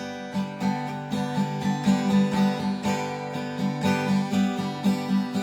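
Instrumental background music: strummed guitar chords played in a steady rhythm, with no voice over it.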